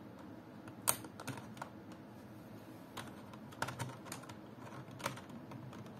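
Key presses on a Rampage KB-R221 membrane keyboard: scattered, uneven clicks of single keys, the loudest about a second in.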